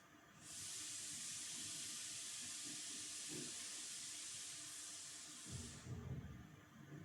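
A steady hiss that starts about half a second in and cuts off sharply about five seconds later, followed by a few low thuds.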